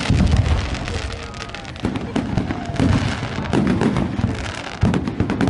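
Aerial fireworks display: several shells bursting with low booms in quick succession, over a dense crackle of many small sharp pops.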